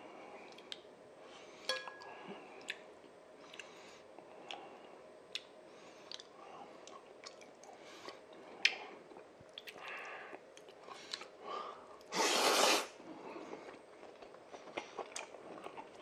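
Close-up chewing of Chapagetti black-bean noodles and beef sirloin, with wet mouth clicks and sharp chopstick clicks against a plate. About twelve seconds in comes one brief, louder rushing noise.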